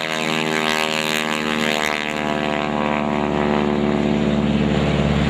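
Stearman biplane's radial engine and propeller droning steadily in a low fly-by. The pitch sinks slightly as it passes, and a low rumble grows toward the end.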